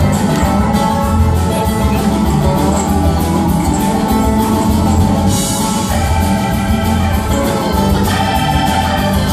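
A live band playing with acoustic guitars, electric bass, keyboard and drum kit, with a steady beat.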